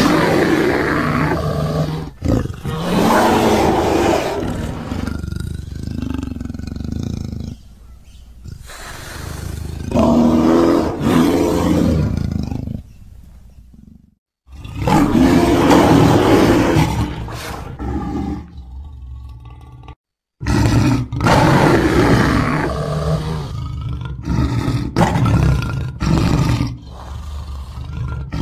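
A series of loud, drawn-out animal roars and growls in a big-cat style, one after another, with abrupt cuts between them.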